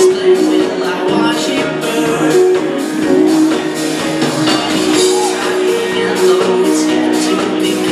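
Live rock band playing in concert, the music running steadily and loud.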